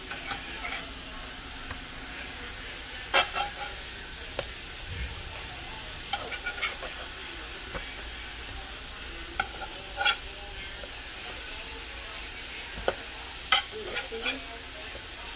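Chicken breasts and red onion rings sizzling steadily on an electric griddle, with the sharp clicks and scrapes of a slotted spatula on the griddle plate every second or two.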